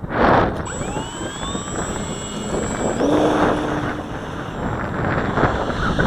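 Electric RC model plane's motor and propeller whining in flight, the pitch climbing about a second in and again about three seconds in, over heavy wind noise on the microphone.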